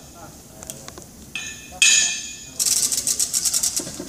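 Steel parts and tools clinking against each other with short metallic rings, twice, then a fast run of rattling clicks for about a second near the end.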